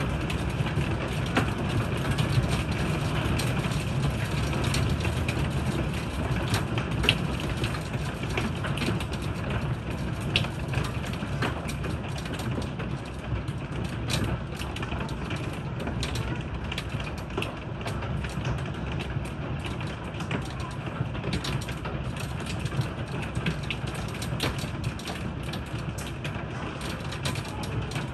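Heavy rain with hail: a steady rush of downpour with many sharp clicks and taps of hailstones striking the wooden deck and nearby surfaces.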